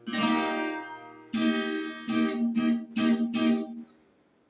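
Viola caipira, the Brazilian ten-string guitar, strummed: one chord left to ring, then a quick run of several more strummed chords. The playing stops short about four seconds in.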